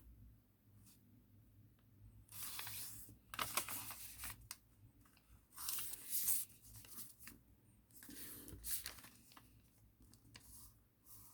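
A sheet of thin origami paper being handled and folded by hand, rustling and crinkling in four short bursts as it is lined up and creased.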